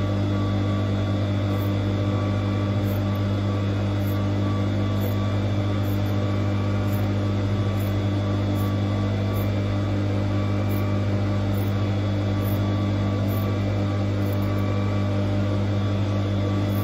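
Steady low electrical hum with a faint buzz above it, unchanging, with no separate knocks or stitching rhythm standing out.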